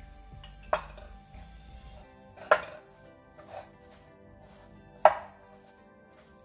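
A hand mixing soya chunks with spice masala in a bowl: three sharp knocks against the bowl, a second or two apart, with a softer one between, over faint background music.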